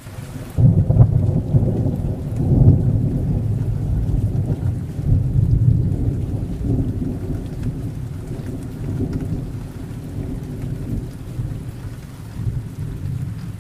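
A thunderclap breaks suddenly about half a second in and rolls on as a long low rumble that slowly fades, swelling again briefly near the end. Heavy rain falls steadily underneath.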